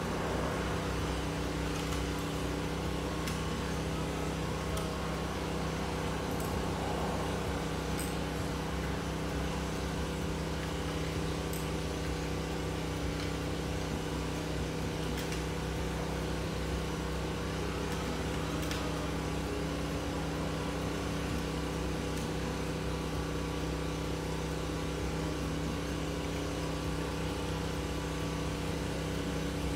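Steady machine hum made of several fixed low tones, unchanging in level, with a few faint sharp clicks a few seconds apart.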